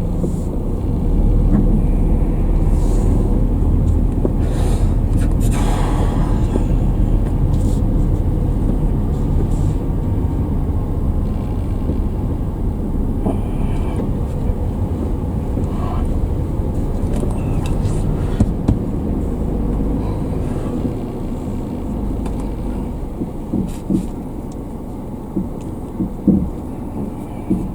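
Steady low rumble of a moving car's road and engine noise, picked up inside the car. It eases a little after about twenty seconds, and a few light knocks come near the end.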